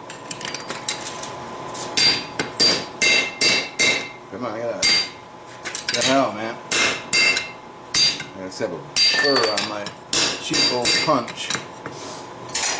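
Hand hammer blows on a red-hot steel bracket bar lying on an anvil, coming in bursts of two or three a second with short pauses, each strike ringing metallically. The smith is driving a handled punch through the hole in the bracket's end.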